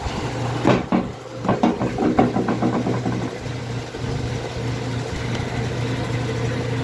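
Steady low mechanical hum of a running motor, with a cluster of knocks and rustles from handling between about one and three seconds in.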